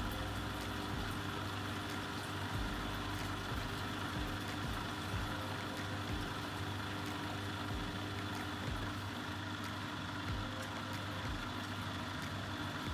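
Vestel washing machine running steadily mid-cycle on a 60° shirts programme: an even motor hum with a few faint clicks.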